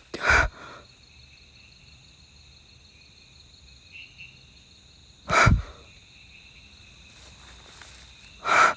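Faint, steady high-pitched trilling of night insects in the forest, several tones held without a break. Three short, loud bursts close to the microphone break in: one just after the start, one about halfway, and one near the end.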